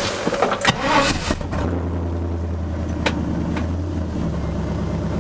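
Chevy C10 pickup's engine being restarted after stalling. It cranks with an irregular clatter, catches about a second and a half in, and then idles steadily, heard from inside the cab. The engine is starved by a failing fuel pump that cuts in and out.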